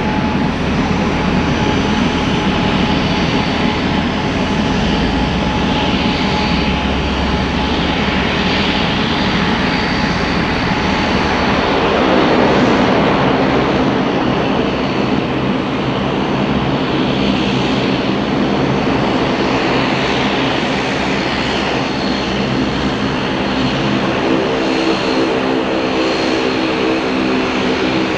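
Boeing 787-8 airliner running during pushback: a steady jet whine over a continuous rushing noise. A deeper steady hum joins in near the end.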